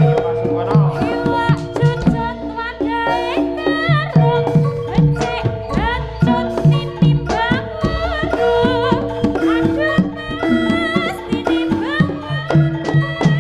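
Live Javanese jaranan music: hand drums beat a steady rhythm under ringing gong-chime and metallophone tones, with a wavering, gliding melody line on top.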